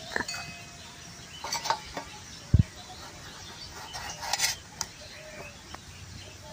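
Knife cutting tomatoes on a stainless steel plate: scattered taps and clicks of the blade against the metal, with a brief ringing from the plate after a tap near the start and a dull thump about two and a half seconds in.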